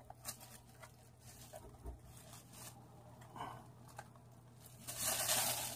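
Hands fitting plastic figure parts together: light clicks and taps, then a louder rustle lasting under a second near the end.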